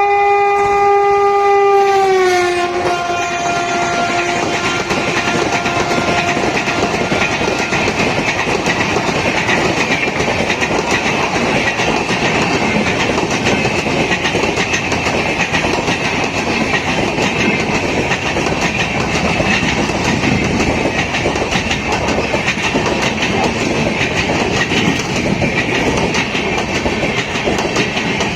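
Indian Railways WAP7 electric locomotive sounding a long horn blast that drops in pitch about two seconds in and fades out over the next few seconds. The passenger train then runs by with a steady clatter of wheels on the rails.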